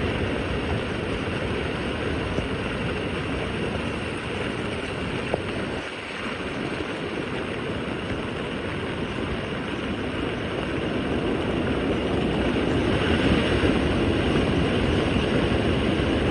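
Floodwater rushing down a wash in a steady, unbroken flow, growing a little louder near the end.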